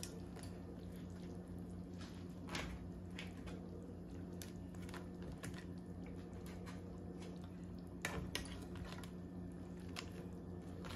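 Snow crab clusters being laid by hand into a pot of steaming broth: scattered faint clicks and wet squishes as the hard shells knock together and against the pot, over a steady low hum.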